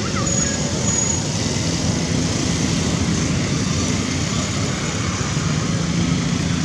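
Steady engine drone with a low hum, and two brief faint high tones about half a second and a second in.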